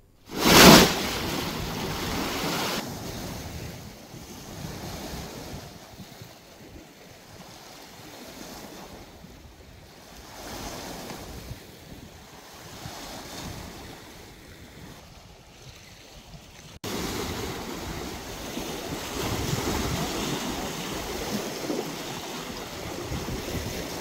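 Wind buffeting the microphone over choppy reservoir water, an even rushing noise. It opens with a sudden loud gust, and about two-thirds of the way through the noise abruptly gets louder.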